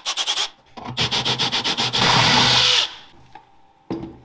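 Power drill with a step drill bit cutting a 20 mm hole in an aluminium oil pan. It cuts in quick stuttering pulses, then runs steadily for about a second and stops about three seconds in. A short knock follows near the end.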